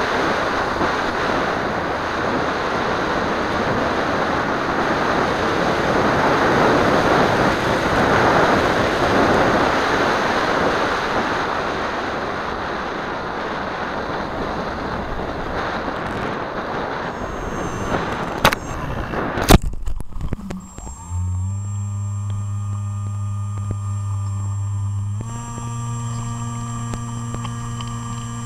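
Wind noise on the onboard microphone of a model Seawind seaplane gliding low over a lake, then two sharp knocks about 19 seconds in. After that comes a steady motor hum that steps up slightly in pitch a few seconds later as the plane sits on the water.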